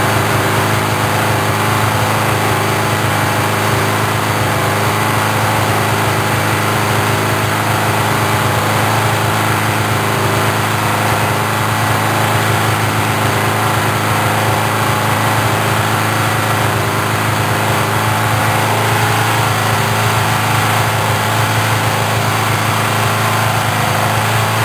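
Four-cylinder motorcycle engine idling steadily while its carburetors are being synchronized.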